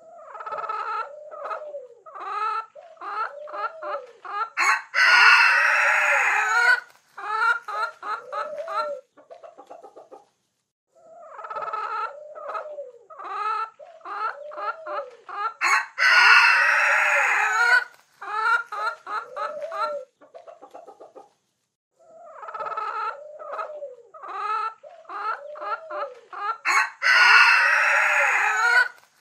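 Hens clucking in quick runs of short calls, with a rooster crowing loudly three times, about eleven seconds apart. Each crow lasts about two seconds and is the loudest sound. The same passage repeats, with short dead-silent gaps between the repeats.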